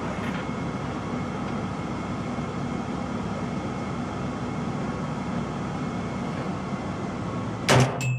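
Steady noise with a faint low hum, then near the end a single loud shot from a .308 AR-10-type carbine fitted with a Battle Comp muzzle brake, followed by a few light clicks.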